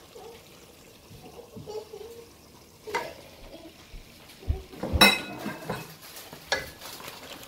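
Chopped tomatoes frying in an aluminium pot on a gas stove, stirred with a wooden spatula. The spatula knocks against the pot three times, the loudest, ringing knock about five seconds in.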